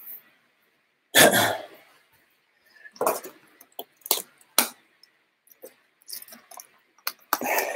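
Short bursts of heavy breathing after exercise, mixed with the clicks and crinkles of a plastic water bottle being handled and drunk from.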